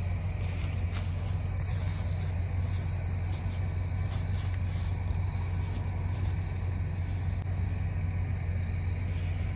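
Steady chorus of crickets with an unbroken high chirring, over a constant low hum.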